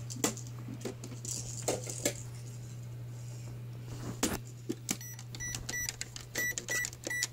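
Plastic toy microwave being handled: scattered clicks and knocks of its door and plastic pieces, then from about five seconds in a quick string of short high electronic beeps as its keypad buttons are pressed.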